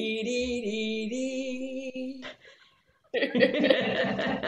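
Women's voices holding the last sung note of a chant, ending a little over two seconds in; after a short pause, laughter breaks out about three seconds in.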